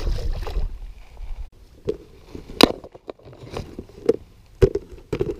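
Scattered clicks and knocks of a clear plastic tackle box and its packs of soft baits being handled on a boat deck, the sharpest about two and a half seconds in and again near the end. A low rumble sits under the first second or so.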